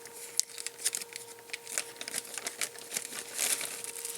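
Small plastic parts bags crinkling as they are handled, in quick irregular crackles, with a faint steady hum underneath.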